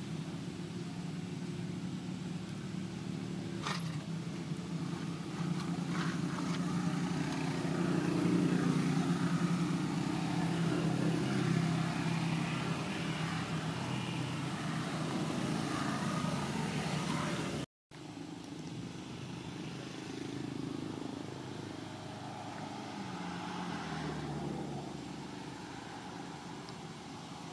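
Steady low hum of motor-vehicle engines running, swelling a few seconds in and easing off later. The sound cuts out for a moment about two-thirds of the way through.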